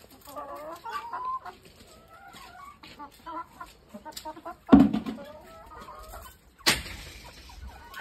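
A flock of domestic hens clucking, several calls overlapping. A loud thump about halfway through and a sharp knock about two seconds later stand out over the clucking.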